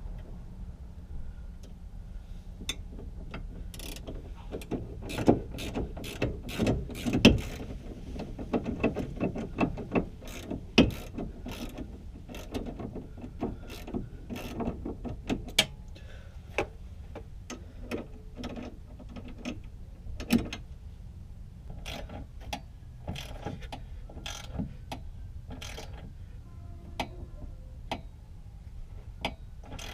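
Hand ratchet wrench clicking in short runs while bolts are worked, mixed with sharp metal knocks and clanks from tools and parts. The loudest knocks come a few seconds in and again about twenty seconds in.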